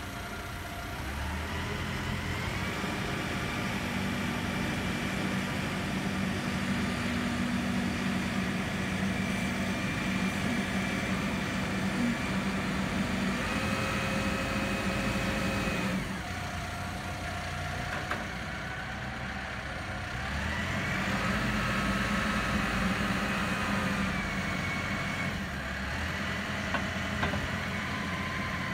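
CAT TH414 telehandler's diesel engine revving up about a second in and holding at raised revs while the hydraulic boom is retracted and lowered, with a steady whine over the engine. It drops back to a lower speed about halfway through, revs up again for a few seconds, then settles.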